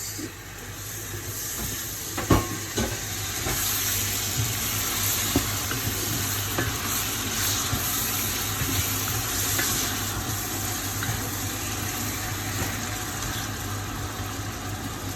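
Chopped tomatoes sizzling in a hot cooking pot with vegetables, a steady hiss, with a single knock about two seconds in.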